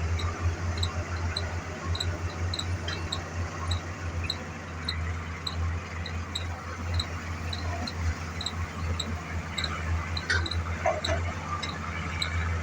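Excavator diesel engine running steadily with a pulsing low hum, while short high-pitched squeaks repeat evenly about twice a second.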